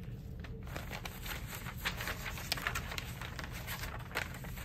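Paper being handled: a run of soft rustles and small crackles over a low steady hum.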